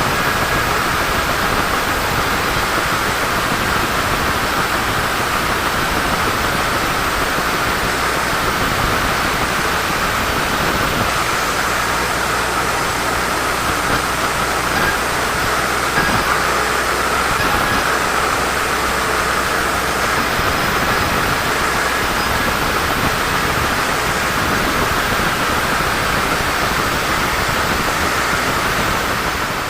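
Sawmill saw running steadily, a loud even noise with a sustained whine in it, as it cuts through a teak log.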